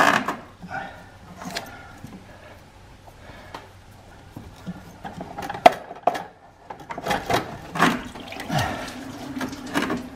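Hose-clamp pliers clicking and scraping on a spring clamp as the lower radiator hose is worked off the thermostat housing, with one sharp click about halfway through.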